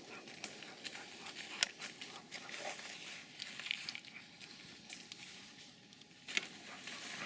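Leaves and twigs rustling and crackling as someone moves through dense undergrowth, with scattered small snaps.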